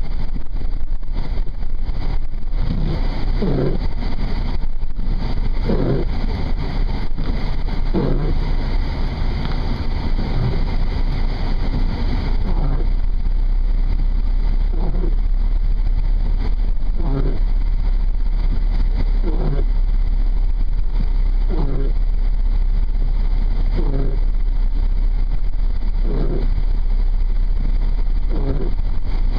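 Steady low rumble of a vehicle driving, heard inside the cab, with a short repeated sound about every two seconds.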